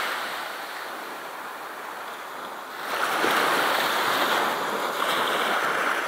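Sea surf washing on the shore with wind, an even rushing noise that grows louder about three seconds in.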